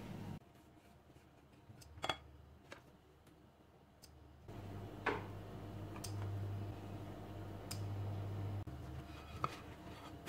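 Quiet kitchen handling sounds: a few sharp clicks and taps as a filled tortilla is set into a non-stick frying pan on the hob. A low steady hum comes in about halfway through.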